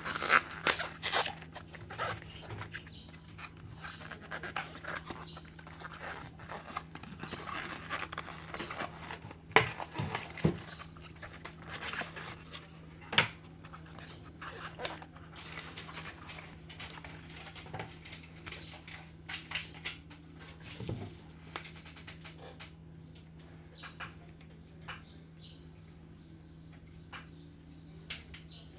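Irregular small clicks, taps and scrapes of tools and parts being handled during an iPhone 7 screen repair, over a steady low electrical hum. The clicks are denser and louder in the first half and thin out toward the end.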